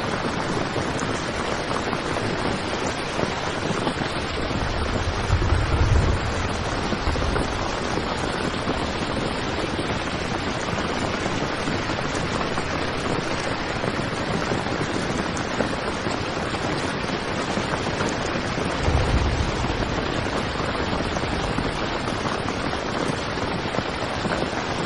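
Heavy rain falling steadily on a tent, a dense even hiss, processed as 8D audio to move around the head. A deep low rumble swells twice, about five seconds in and again about nineteen seconds in.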